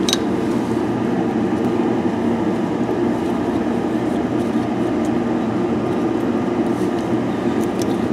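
A steady mechanical drone, strongest in the low-mid range. There is a light click at the start and a couple more near the end.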